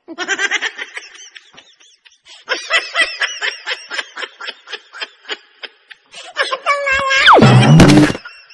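High-pitched snickering laughter in rapid repeated bursts. A loud sound then glides steeply downward in pitch about seven seconds in.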